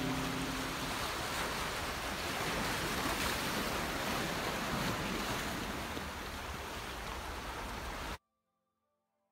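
Sea surf washing on a rocky shore, a steady rushing sound, with the last of some background music fading out in the first second. It cuts off abruptly about eight seconds in.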